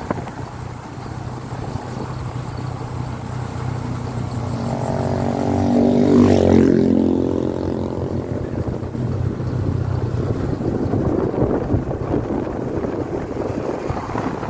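Motorcycle engine running steadily at road speed on a mountain road. Another motor vehicle passes close about six seconds in, its engine pitch rising as it approaches and dropping as it goes by.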